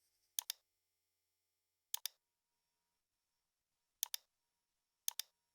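Computer mouse clicking: four quick double clicks spread a second or two apart, otherwise near silence.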